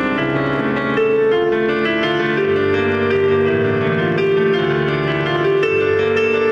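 Solo keyboard playing a slow instrumental medley: long held notes and chords that change every second or two.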